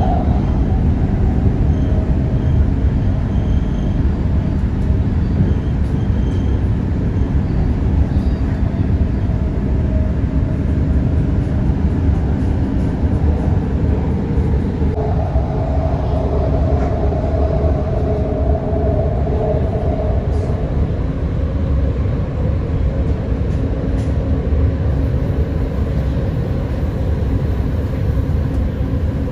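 Doha Metro train running, heard from inside the carriage: a steady low rumble with a motor whine that jumps up about halfway through and fades a few seconds later.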